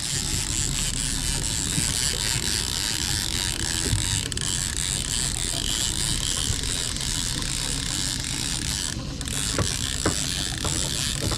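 Large conventional fishing reel being cranked steadily as an angler reels in a hooked fish, a continuous mechanical winding with a few light knocks near the end.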